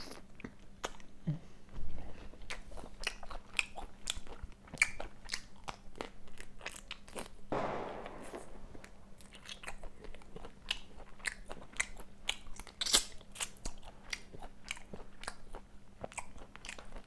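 Shell-on prawns being peeled by hand close to the microphone: a steady run of small crackles and crunches as heads are pulled off and shells cracked away, with one longer rasp about seven and a half seconds in.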